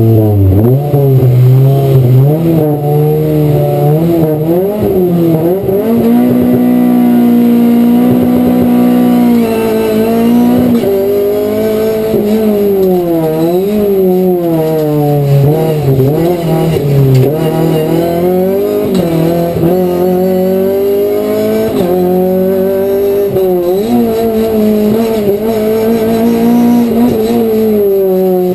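Race car engine at full throttle, heard from inside the cockpit. Its pitch climbs and drops again and again through gear changes on a hillclimb run.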